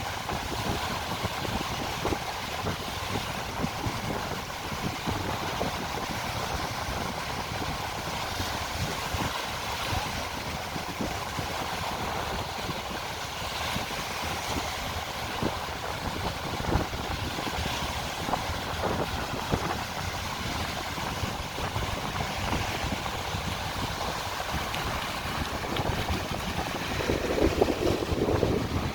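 Sea waves and wind, with gusts buffeting the microphone; it gets a little louder near the end.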